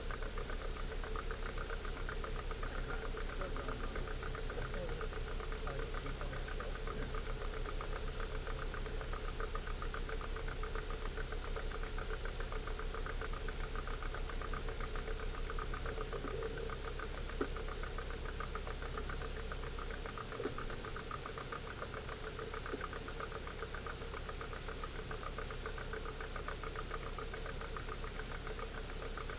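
A 4x4's engine idling steadily with an even, rapid beat, with a few faint clicks partway through.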